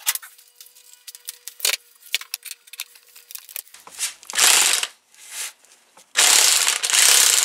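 Impact wrench hammering on a power steering pump's high-pressure outlet fitting through a universal socket and chrome extensions, to break the fitting loose. It gives a short burst about four seconds in, then runs loudly and steadily from about six seconds in. Before that come light clicks and rattles of the socket and extensions being handled.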